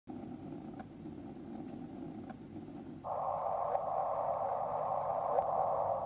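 Synthesized sound presented as two black holes colliding: a steady low hiss with faint ticks about every second and a half. About halfway through it jumps to a louder, higher hiss, which drops back at the end.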